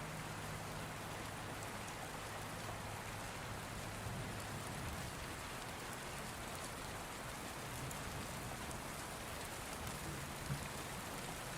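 Steady rain falling, an even hiss of raindrops.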